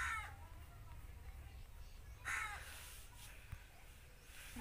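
A bird calls faintly twice, about two seconds apart, each call a short falling cry, over a low steady background hum.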